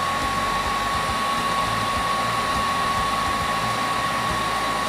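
Paint-stripping heat gun blowing a steady stream of hot air onto a laptop motherboard chip to reflow its solder, with a thin constant whine over the rush of air.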